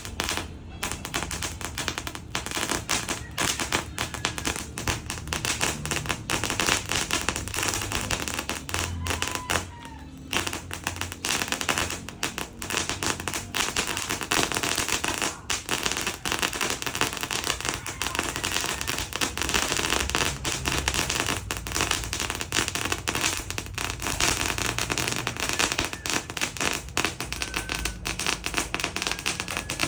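Leegendary Fireworks 'Glow of Sunset' 90-second firecracker item going off in a rapid, continuous crackle of small bangs. There is a short lull about ten seconds in.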